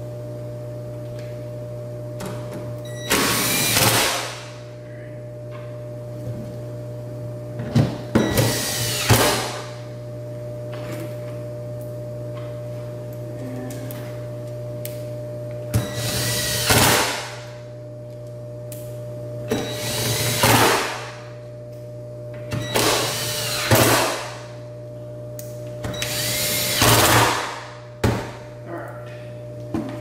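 Power drill driving screws in six short runs of about a second each, spaced a few seconds apart, each winding down as it stops; it is fastening the wall connector's cover back on. A steady electrical hum runs underneath.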